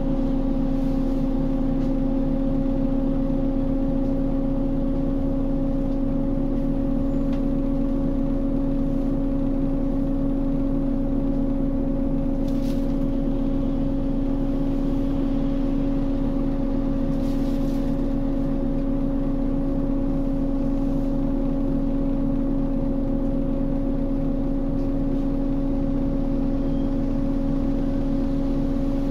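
Scania L94UB city bus with a ZF Ecomat 2 automatic gearbox running steadily: a strong whine holds one pitch over the engine's rumble, with no rise or fall in speed.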